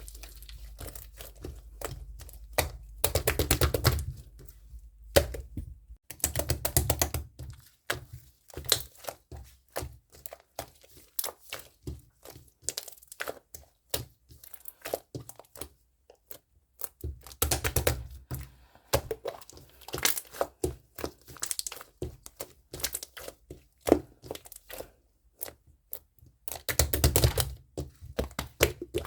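Close-up handling noise: crinkling and rustling with light knocks and clicks, coming in several louder bursts.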